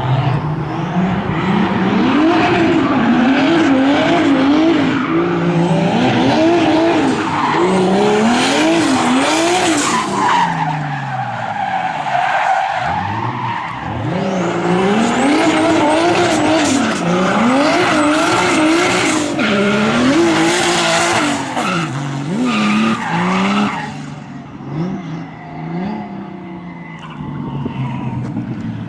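BMW E30 engine revved hard, its pitch climbing and dropping again and again as the car accelerates, shifts and lifts off, with tyre squeal over long stretches. It eases off briefly about halfway through and again near the end.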